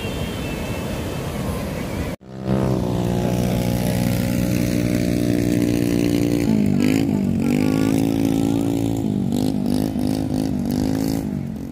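Surf and wind on a beach for about two seconds, then after a sudden cut a small engine running steadily close by. Over the last few seconds its pitch dips and rises again several times.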